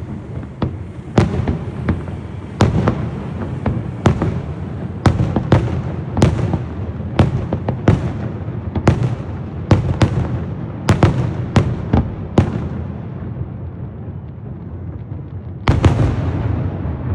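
Aerial fireworks going off in a rapid series of sharp bangs, about one or two a second, with a lull of about three seconds before a loud, dense burst near the end.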